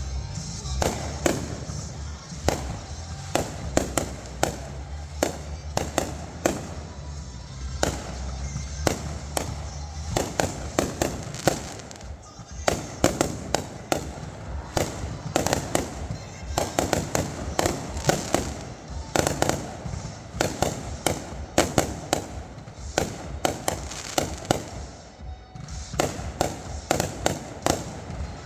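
Consumer fireworks going off in quick succession: a dense run of sharp bangs and crackling that keeps on throughout, with a low rumble under it for roughly the first ten seconds.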